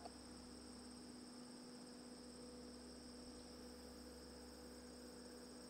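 Near silence: a faint, steady electrical hum with a thin high whine above it, the recording's noise floor.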